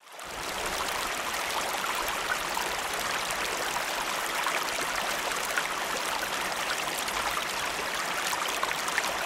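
A river running: a steady rush of flowing water that fades in at the start.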